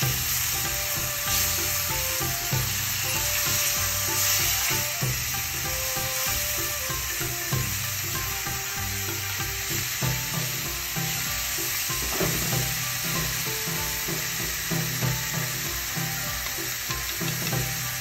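Thin slices of pork sizzling steadily in a frying pan, with occasional light taps and scrapes as they are turned over with wooden chopsticks.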